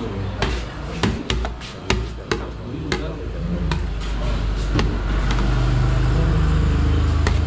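Steel ladle clinking and knocking against a large steel serving tray as meat is picked out and portioned, a dozen or so separate sharp knocks in the first five seconds. Under it runs a steady low hum that swells in the second half.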